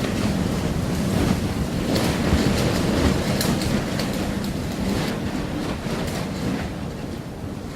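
Storm surf breaking and washing on the Black Sea shore, with strong wind buffeting the microphone and scattered short crackles over it.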